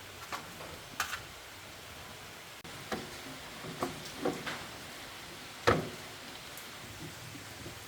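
A series of irregular short clicks and knocks, about seven in all, from small hard objects being handled; the loudest knock comes a little past halfway.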